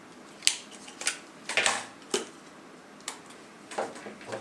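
Hands handling a camera battery grip: several sharp clicks and short rubbing sounds.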